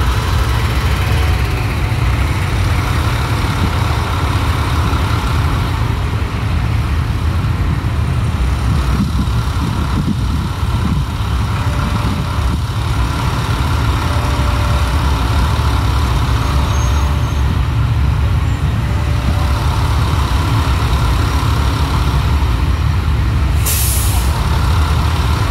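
Heavy trucks running with a steady low rumble. About a second before the end, an air brake releases in a short sharp hiss.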